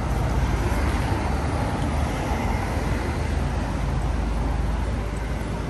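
City street traffic noise: a steady low rumble of vehicle engines and tyres.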